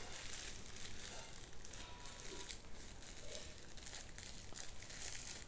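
Faint rustling and crinkling of small packaging being handled, with soft scattered crackles.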